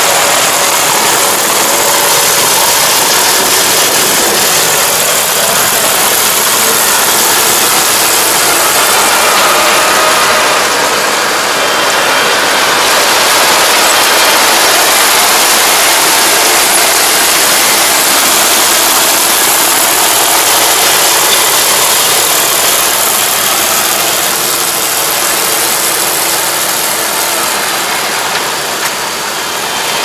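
Iseki Japan 4075 rice combine harvester working close by. Its diesel engine and harvesting machinery make a loud, steady noise, which eases slightly near the end.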